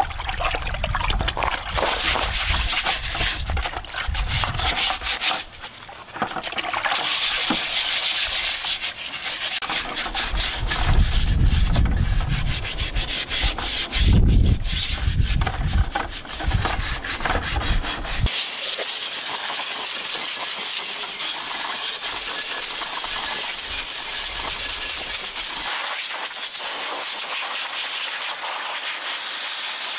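Water sloshing and hands rubbing a steel drum-brake backing plate in a bucket of baking-soda water, irregular and uneven: a rinse that neutralizes the rust-removal acid. About 18 seconds in this gives way to a steady hiss of a compressed-air blow gun drying the plate.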